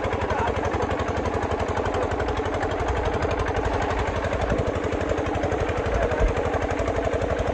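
Tubewell pump engine running at a fast, even beat, under the rush of water gushing from the outlet pipe and splashing over the bathers.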